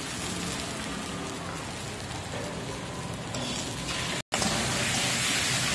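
Chicken and green peppers stir-frying in a hot wok with a steady sizzle. The sound cuts out for a moment about four seconds in, then comes back louder.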